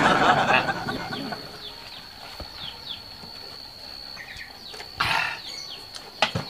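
Iced drink poured from a plastic jug into a glass, splashing for about the first second. Then a few small birds chirp, and there is a short squawk about five seconds in, over a faint steady high whine.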